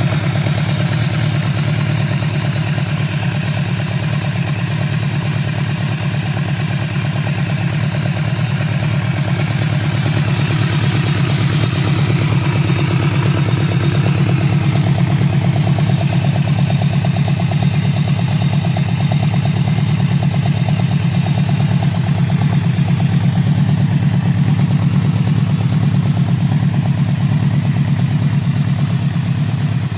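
Yamaha VMAX's V4 engine idling steadily through an aftermarket twin-outlet exhaust, a little louder from about halfway.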